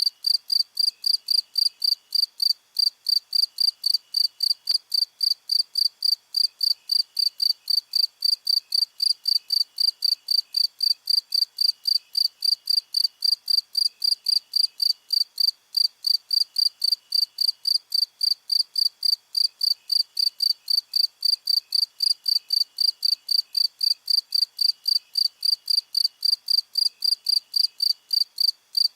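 Crickets chirping in a steady, even rhythm of about three high-pitched chirps a second, with a fainter second insect trilling on and off underneath.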